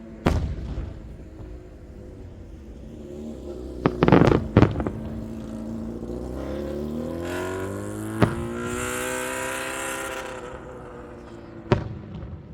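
Fireworks shells bursting with sharp booms: one about a quarter second in, a quick cluster around four seconds, and single bursts near eight and nearly twelve seconds. Between the bursts a pitched whistling tone rises slowly for several seconds under a high hiss.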